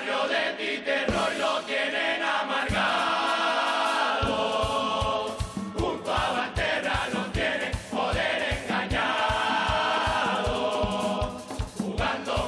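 A Canarian carnival murga, a chorus of men, singing together in a chant-like melody. A low drum plays a few scattered hits, then settles into a steady beat of about three strokes a second about four seconds in.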